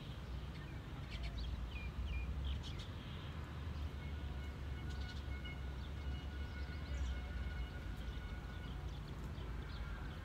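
Small birds giving short chirps, in two scattered spells, over a steady low rumble.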